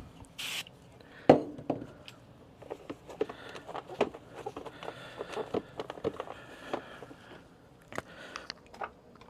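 Scattered light clicks, taps and scrapes of plastic instrument-cluster parts and small screws being handled on a workbench, with a brief hiss about half a second in and a sharper knock a little over a second in.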